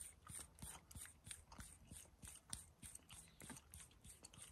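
Faint, irregular metallic clicks, a few a second, as a steel barrel tuner is turned by hand on the threads of a muzzle brake's locking collar.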